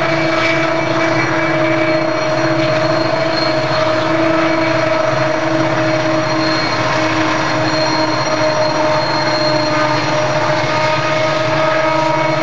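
Southern Pacific diesel locomotives working under load on the eastbound climb, heard across the valley as a steady droning hum with several held tones that waver slightly in pitch.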